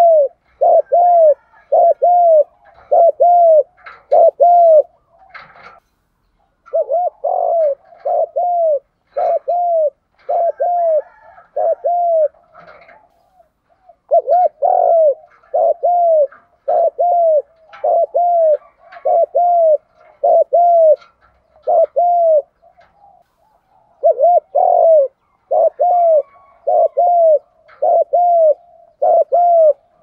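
Spotted dove cooing in its rapid 'thúc gù' style: runs of short, arched coos at about two a second, each run lasting several seconds before a brief pause.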